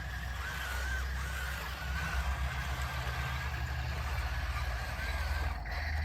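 A toy RC battle tank running: a steady low engine rumble with fast pulsing, and a thin whine that wavers up and down above it.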